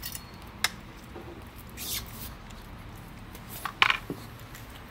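A few scattered clicks and scrapes of handling, with a louder brief clatter just under four seconds in as metal utensils are picked up off a plate on a concrete ledge.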